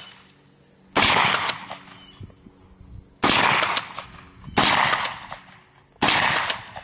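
Kel-Tec KSG 12-gauge pump-action shotgun firing buckshot: four loud shots about a second to two seconds apart, each trailing off briefly.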